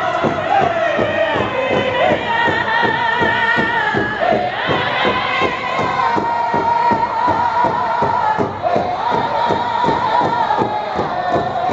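Powwow drum group: several men singing a high-pitched chant in unison over steady, even beats struck together on one large hide drum. The sung line jumps higher about four and a half seconds in and again past eight seconds.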